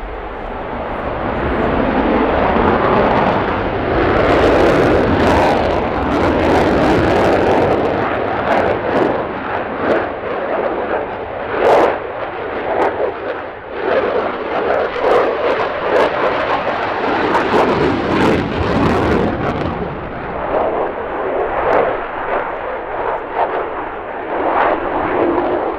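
F-16 Fighting Falcon's single afterburning jet engine roaring loudly as the fighter flies a display pass overhead. The noise swells over the first couple of seconds and carries a ragged crackle through much of its length.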